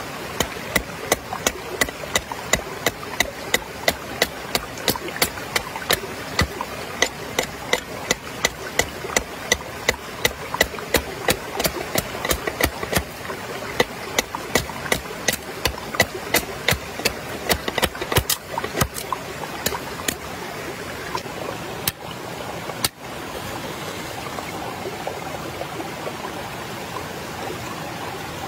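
River stream flowing steadily, under a long run of sharp, evenly spaced knocks, about three a second, that stop about twenty seconds in.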